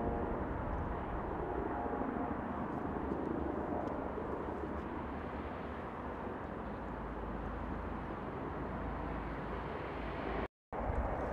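Helicopter flying past at a distance, a steady rotor and engine drone with a faint whine in the first second. The sound cuts out completely for a moment near the end.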